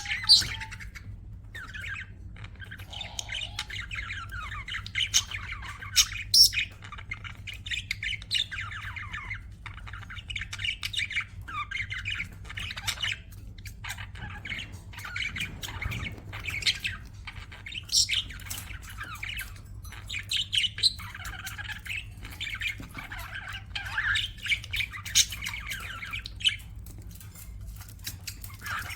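Budgerigars chattering and warbling continuously, with frequent sharp, loud chirps and squawks.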